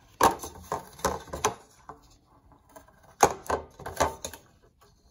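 Kitchenware clacking as a flan mold is handled to spread hot caramel around it: about four sharp knocks in the first second and a half, then four more after a pause.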